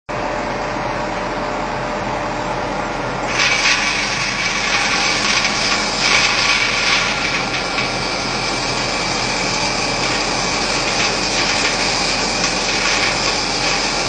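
Electric colloid mill running, a steady motor whine and grinding noise that starts abruptly and gets harsher and brighter about three seconds in.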